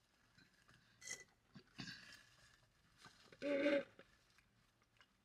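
Fast-food meal being eaten in a car: soft clicks and rustles of paper wrappers and chewing. About three and a half seconds in there is a short, louder, half-second sip through a drinking straw from a paper soda cup.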